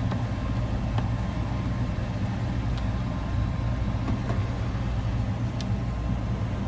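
Gas furnace running with its burner lit: a steady low hum from its motors and flame, with a few faint clicks.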